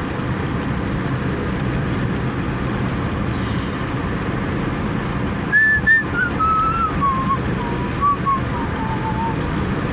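Steady road and engine noise inside a moving car. About halfway through, someone whistles a short tune of held notes that step down in pitch for about four seconds.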